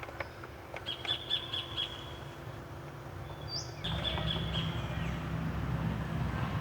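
Birds calling: two runs of high, rapid chirping trills with a short rising whistle between them. Under the birds a low steady rumble grows louder about four seconds in.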